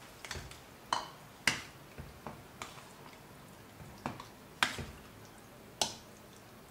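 A spoon knocking and scraping against a saucepan as a thick tomato sauce is stirred: a run of irregular sharp taps, a few of them louder.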